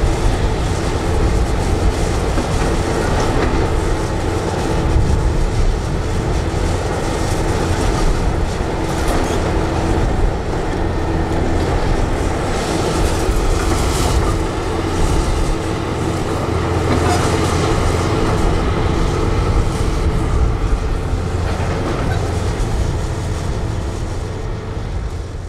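Hitachi 470 demolition excavator running, its diesel engine and hydraulics droning steadily, with scattered clanks and crunches of concrete rubble as it works. The sound fades near the end.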